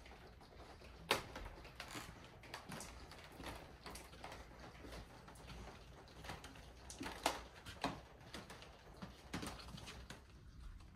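Walking footsteps on a hard floor, a steady run of soft knocks and clicks under a low room hum, with sharper knocks about a second in and around seven seconds in.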